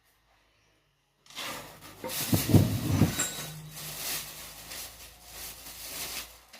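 Rough metal-on-metal scraping and grinding that starts about a second in, surges in uneven pulses, heaviest early on, and stops just before the end; typical of a steel spindle or axle being worked in the T-25 front beam's bushings.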